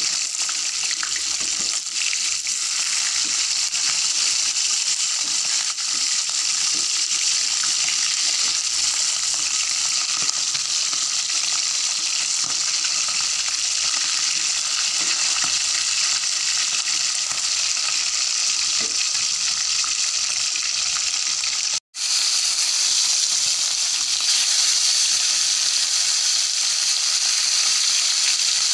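Mackerel pieces sizzling steadily as they fry in hot oil in a pan, with light taps and scrapes of a wooden spatula turning them. The sound cuts out for an instant about three quarters through, then a fresh batch of fish sizzles a little louder.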